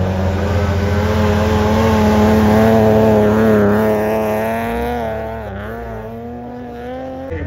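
Rally car's engine pulling hard from a standing start, its pitch climbing, then dipping and rising again at gear changes. The engine grows quieter as the car accelerates away.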